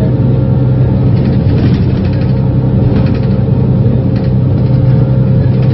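Van Hool A330 city bus's engine running with its ZF automatic gearbox, a steady deep hum with a steady higher whine over it.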